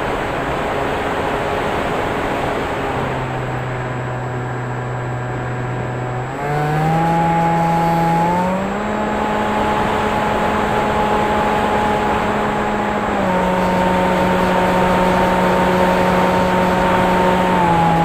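FPV drone's electric motors and propellers whining over a rush of air. The pitch holds steady, then steps up twice around the middle and back down twice later as the throttle changes.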